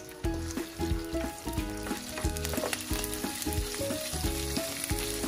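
Boiled beef frying in hot oil in a pan, a steady sizzle with stirring. Background music with a melody and a regular beat plays over it.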